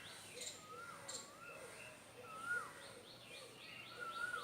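Several birds calling: one repeats a short whistle that rises then falls, about once a second, over fainter lower notes and quick high chirps.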